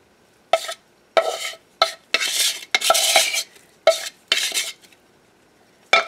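Metal lab spatula scraping and working thick dental stone against a tile and the rim of the mixing bowl, in a series of short scrapes, the longest about a second.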